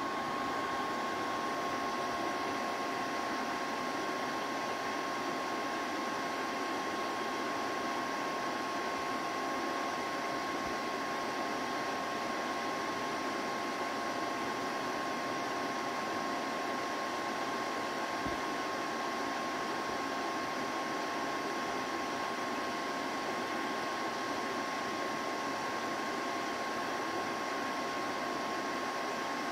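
A liquid-light oil-wheel projector running: a steady whir of its cooling fan with two constant whining tones over the hiss.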